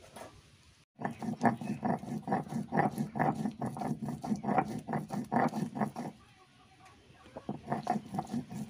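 Stone roller rubbing back and forth on a flat grinding stone (sil-nora), crushing whole cumin and ginger into a paste. It goes in quick, even strokes, about three or four a second, with a short pause about six seconds in.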